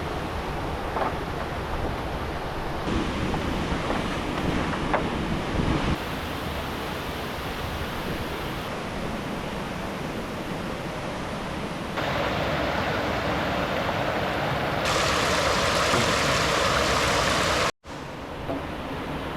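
Steady rush of flowing river water. Its level and tone jump abruptly several times, with a brief dropout near the end, and a few faint knocks sound in the first half.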